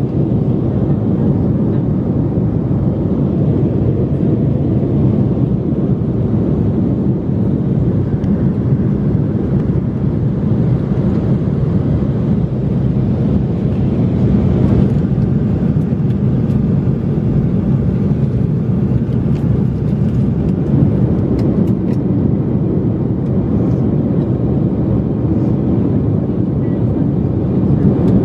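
Steady low rumble of turbofan engine and airflow noise inside the cabin of an Embraer 175 regional jet climbing out after takeoff, heard from a rear seat.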